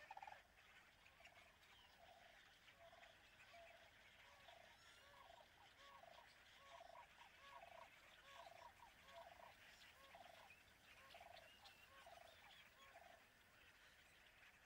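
Faint animal calls: a long series of short, repeated calls at about two a second that fade out near the end, with fainter high chirps above them.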